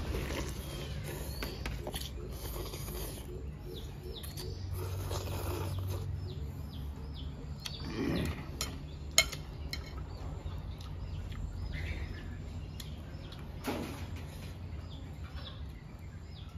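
A person eating rice noodles in broth: slurping and chewing, with a spoon knocking sharply against the bowl once about nine seconds in. Small birds chirp on and off throughout.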